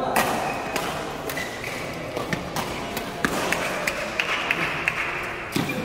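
Badminton rackets striking a shuttlecock: a string of sharp clicks at uneven intervals, coming quicker in the second half, with one loud hit near the end, ringing in a large, echoing sports hall.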